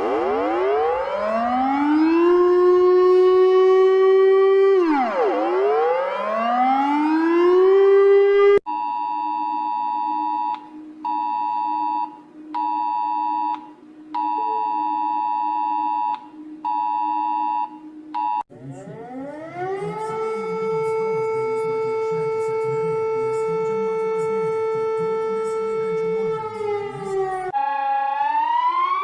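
A run of emergency alert alarm sounds. First a siren winds up in pitch, drops and winds up again. Then a steady multi-tone alert sounds in irregular on-off blasts. Then a siren tone rises and holds, changing to another rising tone near the end.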